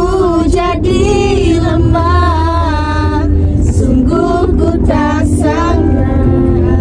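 A song with female vocals playing on the car stereo, with women in the car singing along over bass that runs underneath.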